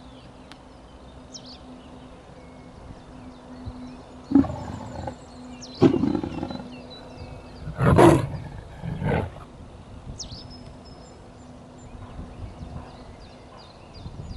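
Gusts of wind rumbling on the microphone in four loud bursts, with small birds chirping high and short and a faint steady hum underneath.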